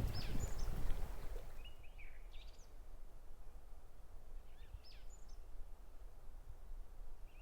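Birds calling outdoors: short, quick-sweeping chirps in a few groups a couple of seconds apart, over a background rush that fades away during the first two seconds.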